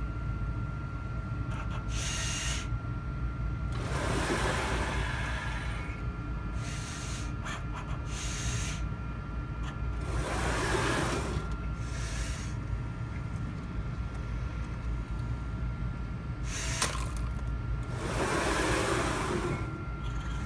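Hamilton Microlab STAR liquid-handling robot running a pipetting transfer: a steady hum with a faint high whine, broken by about six rushing motor sounds of a second or two each as its arms travel, and one sharp click near the end.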